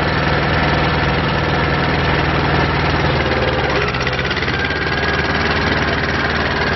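Diesel engine of a Mitsubishi D2000 II compact tractor running steadily as the tractor drives, its note easing a little about three to four seconds in.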